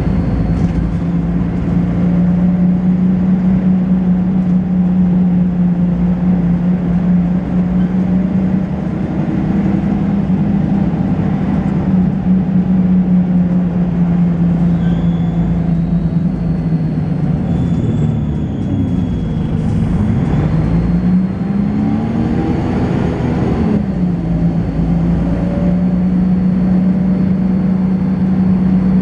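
Volvo B10BLE bus's diesel engine and ZF automatic gearbox running steadily under way. About two-thirds of the way through, the engine note sinks as the bus slows, climbs again as it pulls away, and drops back with a gear change. A faint steady high-pitched whine sits above the engine near the start and again near the end.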